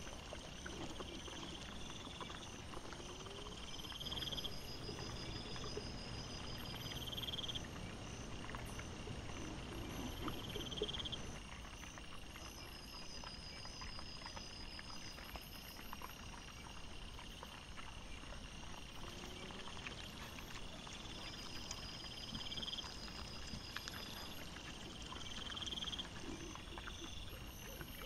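Wild boars and piglets foraging at night, heard through a trail camera's microphone and played at four times normal speed: short low croaky grunts now and then over rustling, under high insect trills that repeat every couple of seconds.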